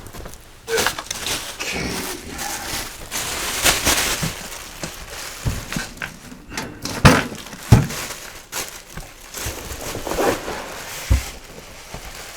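Packing peanuts rustling and crunching as they are handled and scooped out of a box, with a few sharp knocks.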